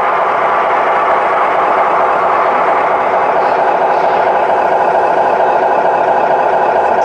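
Steady engine sound from a radio-controlled model fire truck, running evenly without revving.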